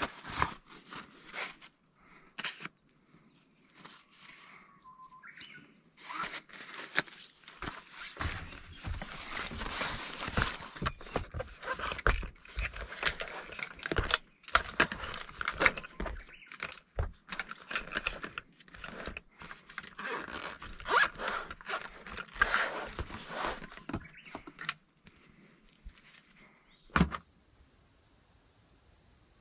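Camping gear being handled and packed: nylon stuff sacks rustling and being pulled over gear, with scattered scrapes and knocks as items are set down. A steady insect chirring runs underneath and is left alone for the last few seconds, broken by one knock.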